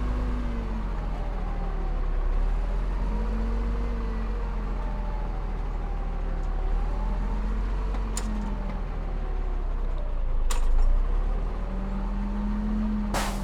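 Diesel engine of heavy earthmoving machinery running under varying load, its pitch rising and falling slowly. Three sharp short sounds cut through it, the last and longest near the end.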